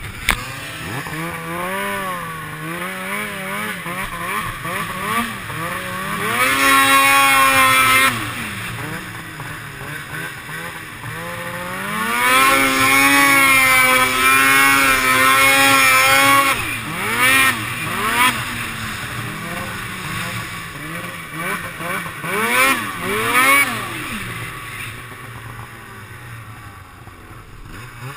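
Polaris 800 Switchback snowmobile's two-stroke twin engine revving as it is ridden, its pitch rising and falling with the throttle. It is held high and loud twice, about six seconds in for a couple of seconds and again for about four seconds in the middle. Short blips follow, then it eases off near the end.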